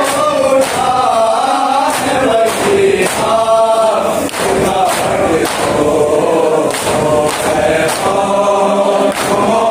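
A crowd of men chanting a Shia noha (mourning lament) in unison, with the slaps of hands striking chests in matam keeping a steady beat of about one strike a second.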